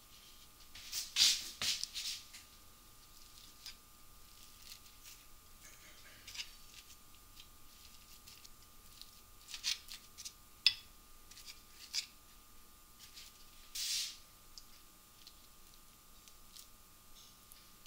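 Wooden chopsticks placing food into a bentwood bento box: scattered soft clicks, taps and rustles, busiest about a second in, with a sharp click about ten and a half seconds in. A faint steady hum lies underneath.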